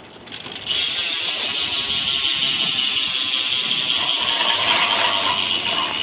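Stock cassette rear hub of a 2012 Eastern Mothra BMX freewheeling as the back wheel is spun by hand: its pawls click over the ratchet in a fast, even buzz, pretty loud for a stock hub. The owner thinks the driver has three pawls. The buzz starts under a second in and eases slightly near the end.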